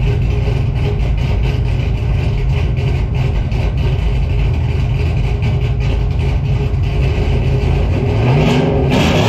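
Cammed 6.0 V8 idling through a 3-inch equal-length exhaust with Black Widow Race Venom mufflers, with a steady pulsing beat. About eight seconds in it is revved, the pitch rising and falling.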